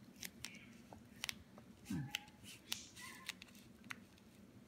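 Faint, scattered light clicks and taps of the plastic sushi mold and its lid being handled.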